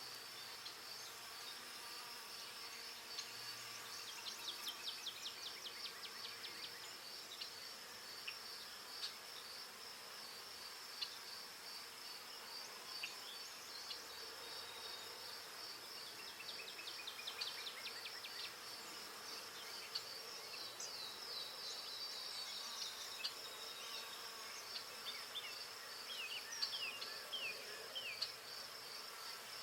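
Forest ambience: a steady, high-pitched insect buzz, with short bird chirps and trills breaking in every few seconds.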